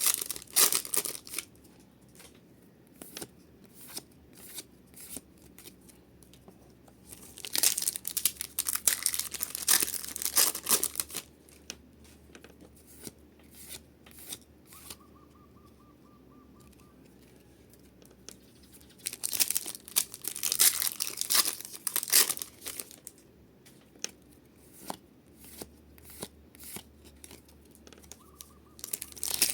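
Foil Pokémon card booster pack wrappers being torn open and crinkled. The sound comes in bouts of a few seconds, with quieter stretches of small ticks between them.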